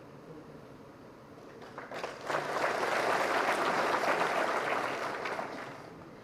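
An audience applauding, the clapping swelling up about two seconds in, holding for a few seconds, then dying away near the end.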